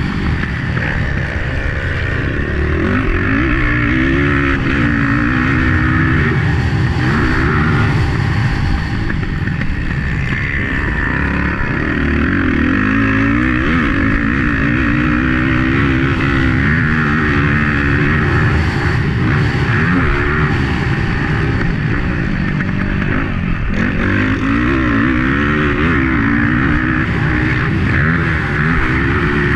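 A 250 four-stroke motocross bike's engine at race pace, heard from on board, its pitch climbing and dropping over and over with throttle and gear changes.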